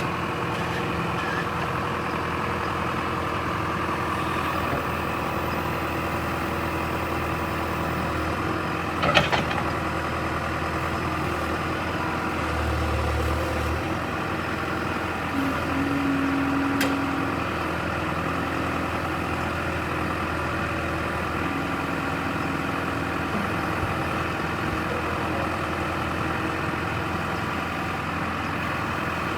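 John Deere 310E backhoe's diesel engine running steadily at a low, even speed, with one sharp knock about nine seconds in.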